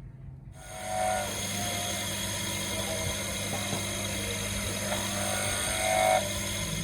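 Electric power tool switched on about half a second in and running steadily with a high whine, louder for a moment near the end.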